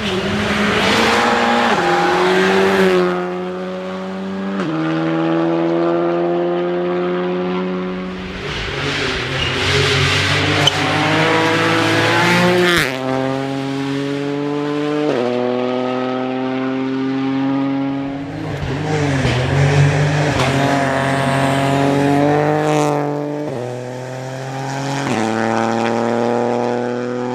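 Rally car engines accelerating hard along a stage, revs climbing in each gear and dropping sharply at each upshift, several times over. The engine note swells and fades as the cars pass, with tyre and gravel noise in the louder moments.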